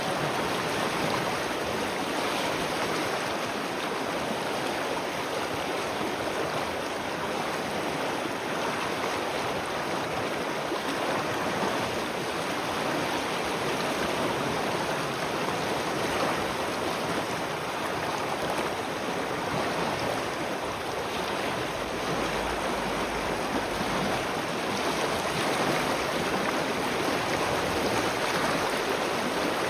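Spring water flowing steadily, a continuous even rush of running water.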